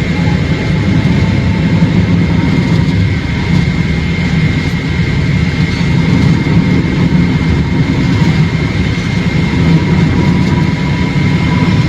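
Steady road and engine noise of a moving vehicle heard from inside the cabin, heaviest in the low range, with a faint steady high tone over it.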